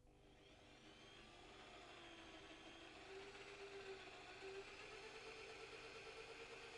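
Electric drill running steadily while drilling pilot holes in a window frame, a faint whir that starts at the outset and rises slightly in pitch over the first few seconds.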